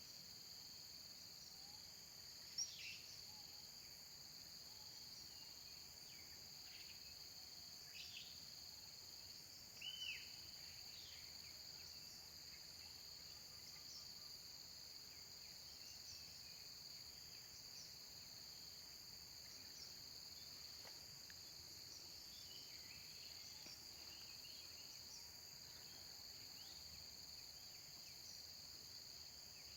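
Steady high-pitched drone of insects, with a few short, sharp high chirps about 2.5, 8 and 10 seconds in.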